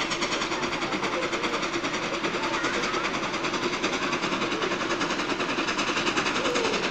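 Vintage steam fire engine working its steam pump, a fast, even chuffing beat, pumping water from the canal.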